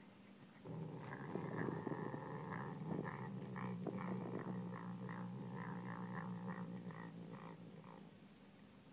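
Savannah cat growling over a piece of raw pork as it eats: a low, steady, continuous growl with a pulsing rasp, starting about a second in and fading out near the end.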